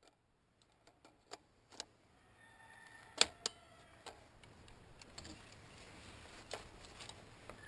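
Faint scattered clicks and ticks, with a sharper pair of clicks about three seconds in.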